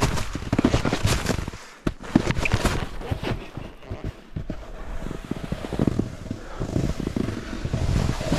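Snowboard scraping and crunching over wet snow in a rapid irregular series, with wind buffeting the microphone. It quietens briefly about two seconds in and becomes a steadier rush near the end.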